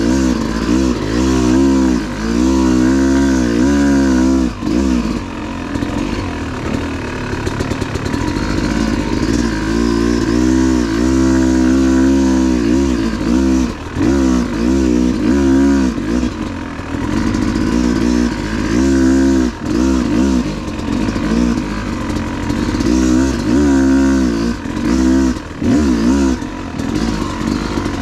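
Yamaha YZ250 two-stroke dirt bike engine under way, revving up and dropping back again and again as the throttle is worked on and off, with a steadier, lower spell partway through.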